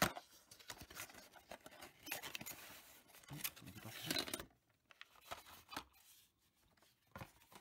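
Small cardboard box being opened and a clear plastic blister tray slid out and handled: a busy run of scraping, rustling and clicks for about four and a half seconds, then only a few light clicks.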